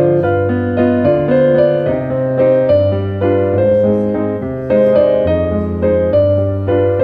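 Background piano music: a flowing run of notes over low bass notes that change about once a second.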